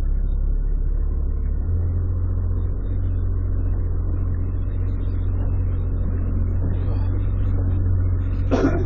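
Small fishing boat's engine running steadily, a low rumbling hum that gets slightly louder about two seconds in.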